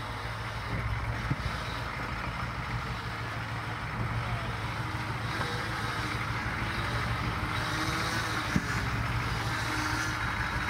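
Diesel engine of a Jeep Wrangler YJ running steadily at low revs as it crawls over rocks, with a light click about a second in and a single sharp knock late on.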